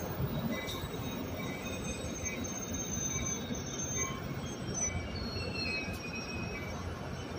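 Bilevel passenger cars of an arriving train rolling slowly along the platform: a steady low rumble of wheels on rail, with thin high squeals that come and go.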